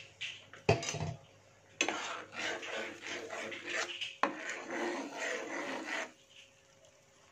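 Metal spatula stirring and scraping a blended spice paste around a nonstick frying pan as it sautés. There is a knock about a second in, then a long stretch of scratchy scraping that stops near the end.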